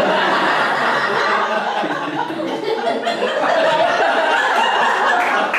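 Comedy club audience laughing at a stand-up punchline: a steady, sustained wave of crowd laughter.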